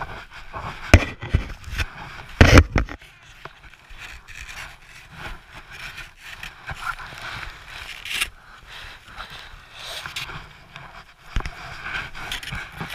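Small red plastic snow shovel scraping and knocking in the snow, heard right up against the camera, with mittens and snowsuit rubbing close to the microphone. Two heavy knocks come in the first three seconds, and uneven scraping and rustling follow.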